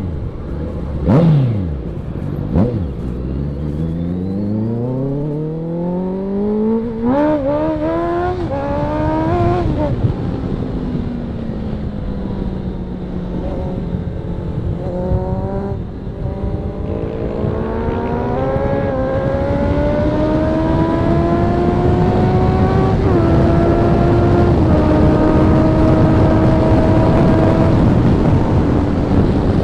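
Motorcycle engines, a Honda CB650F and a KTM, revving hard and accelerating. A couple of quick pitch swoops come in the first few seconds, then repeated rising sweeps through the revs. Later the pitch climbs steadily with short drops at upshifts.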